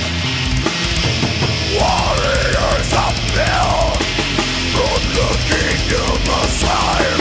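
Mid-1990s death metal recording: a heavily distorted band playing continuously, with a higher, wavering, bending line coming in about two seconds in.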